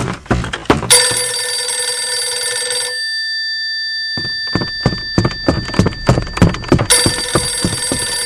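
Telephone ringing: two rings of about two seconds each, about four seconds apart, with a faint tone hanging on between them. A run of quick, loud thumps comes in the pause between the rings.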